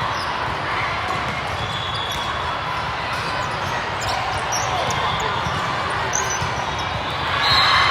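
Steady din of a volleyball tournament hall: many voices, sneakers squeaking on the court and balls being hit and bounced, swelling briefly near the end.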